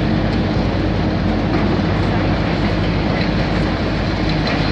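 Heavy demolition plant at work: a high-reach demolition excavator's diesel engine running steadily, with scattered small cracks and knocks of concrete breaking up.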